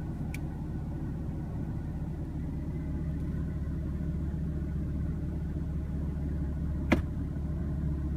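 2016 BMW M3's twin-turbo inline-six idling steadily, heard from inside the cabin as a low hum. A single sharp click sounds near the end.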